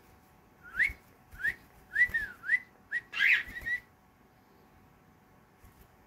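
Cockatiel giving a run of about six short rising whistled chirps over some three seconds, the last one louder and harsher.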